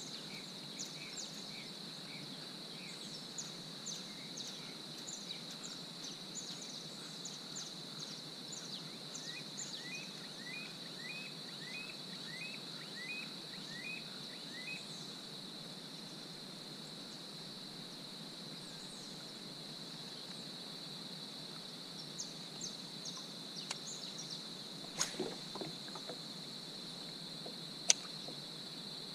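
Birds chirping and calling over a steady, high-pitched insect drone, with one bird singing a run of short repeated notes about ten seconds in. There are two sharp clicks near the end, and the second is the loudest sound.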